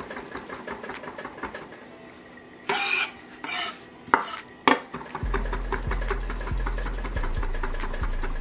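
Chef's knife mincing garlic on an end-grain wooden cutting board: a fast, even run of blade taps. About three seconds in it breaks for two scrapes, as the garlic is gathered into a pile, and two sharp knocks, then the rapid chopping picks up again.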